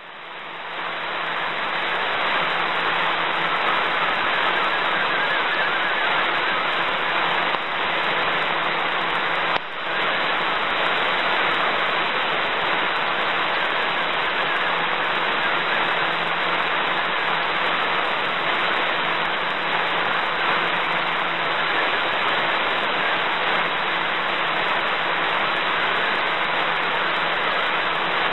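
Shortwave receiver audio of an MFSK32 digital-mode data transmission on 5850 kHz: a continuous warbling stream of data tones under heavy hiss and static, with a brief dropout about ten seconds in. The signal is weak enough that much of the decoded text comes out garbled.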